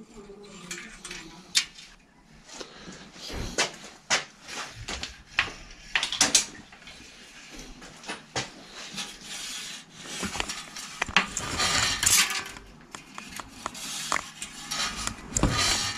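Irregular metallic clicks, taps and rattles of hands working at a bicycle's rear wheel and frame, threading the shift cable of a Torpedo three-speed hub around its guide pulley.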